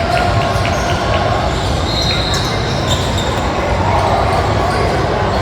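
Basketball game sounds in a gym: the ball bouncing on the court amid background voices, with a short high squeak about two seconds in.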